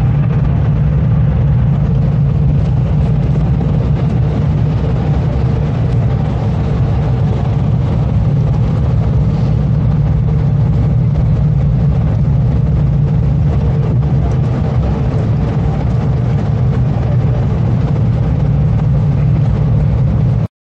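Steady low rumble of engine and road noise heard from inside a moving bus, with a faint constant hum over it; it drops out for an instant at the very end.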